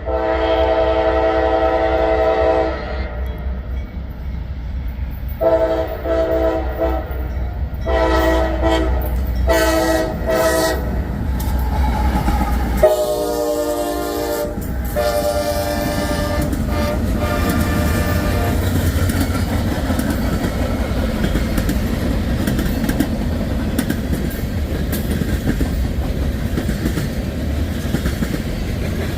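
Air horn of a CSX freight train's lead diesel locomotive sounding a series of long chord blasts over the locomotives' low engine rumble. The horn stops after about 18 seconds, and the freight cars then roll by with a steady rumble and wheel clatter.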